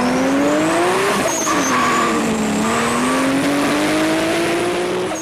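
A car engine running hard, its pitch rising, dipping and rising again, with a high whine above it.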